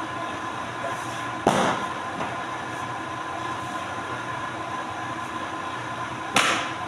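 Steady machine hum, with two short, loud rustling slaps about a second and a half in and near the end as stacks of paper sheets are handled and set down on a pile.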